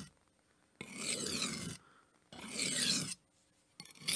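Kitchen knife blade being pushed edge-first across the coarse side of an oil-lubricated sharpening stone. Two even scraping strokes, each about a second long with a short pause between them, then a brief scrape and the start of another stroke near the end, as the nicks are ground out of the edge.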